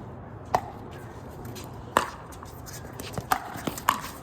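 Pickleball paddles hitting the hard plastic ball with sharp pops: two strokes well over a second apart, then four in quick succession near the end, as in a fast volley exchange.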